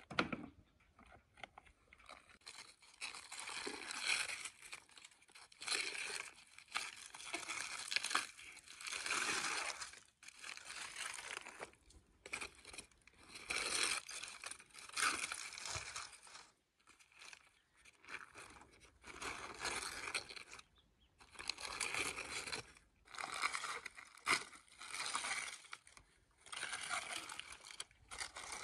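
Aluminium foil crinkling and rustling in repeated bursts of a second or two as hands peel it open from around a roast goose.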